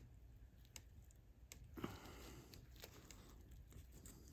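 Faint sticky clicks and little smacks of wet epoxy as fingers press epoxy-soaked cloth into a broken joint of a folding camp chair, with one louder squelch near the middle.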